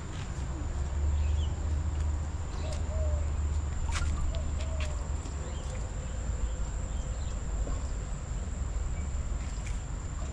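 Outdoor background: a steady low rumble, heaviest in the first half, with a few faint short chirps and several sharp clicks, the strongest about four seconds in.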